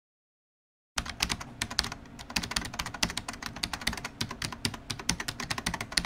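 Computer keyboard typing: fast, irregular key clicks starting about a second in, after a second of silence.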